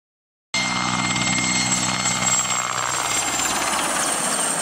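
Mil Mi-8 military helicopter flying low overhead, its rotor and twin turboshaft engines running steadily with a high turbine whine. The sound cuts in abruptly about half a second in.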